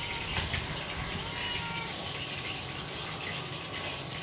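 Fish frying in hot oil in a pan, a steady sizzle. A faint, thin animal call rises and falls about a second and a half in.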